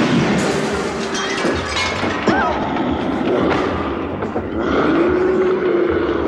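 Subway train running inside the car, with a man's yells and a snarling growl over it. A held, growling vocal sound starts about five seconds in.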